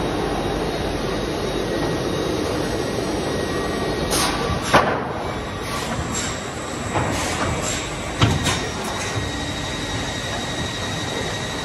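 Grecon Dimter OptiCut S 90 XL optimizing cross-cut saw line running with a steady machine hum. A cluster of sharp clacks and knocks comes between about four and nine seconds in.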